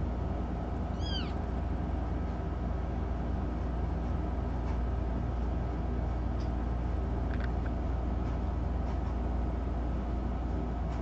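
A young kitten mews once, a short high cry falling in pitch about a second in, and gives a second, briefer cry about seven seconds in, over a steady low hum.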